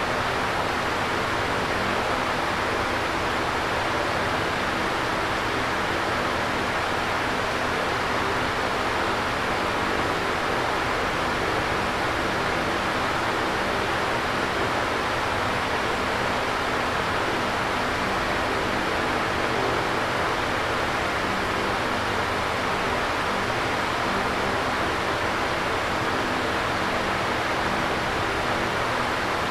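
Electric fan running steadily: an even rushing of air with a faint steady hum underneath.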